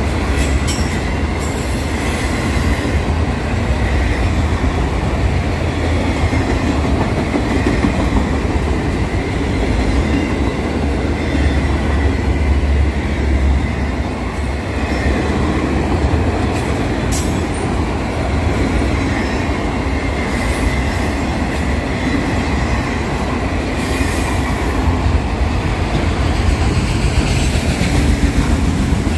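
A train's cars rolling past on the rails: a steady, heavy rumble of wheels on track, with a faint high-pitched wheel squeal and a few sharp clicks from the rail joints.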